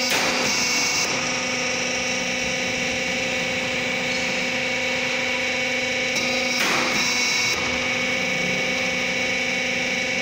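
Z purlin roll forming machine running steadily as the steel purlin feeds through its rollers and cutting head, a constant machine hum with several steady tones. Two brief hissing surges break in, one at the start and one about six seconds in.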